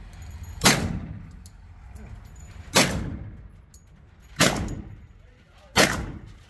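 Kriss Vector .45 ACP carbine fired as four single shots, about one and a half to two seconds apart, each report echoing briefly off the walls of an indoor range.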